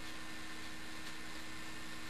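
Steady hum and hiss of a small-form-factor desktop computer running as it boots, with a few faint steady tones and no clicks or sudden sounds.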